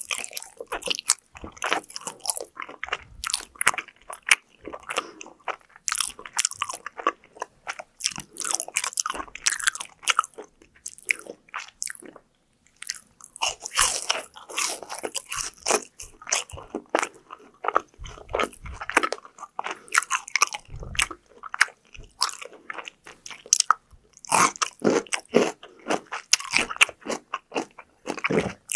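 Close-miked eating of crunchy fried food: repeated crisp crunching bites and chewing, with a brief pause about twelve seconds in.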